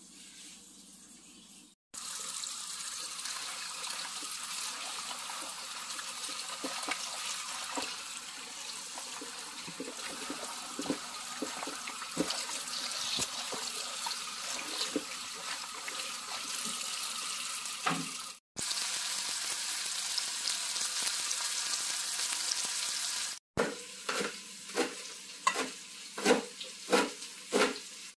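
Tap water running steadily into a bowl as amaranth and spinach leaves are washed, with small clicks and splashes from handling the leaves. Near the end, a series of about seven sharp knocks, one every half second or so: knife chops through the greens onto a board.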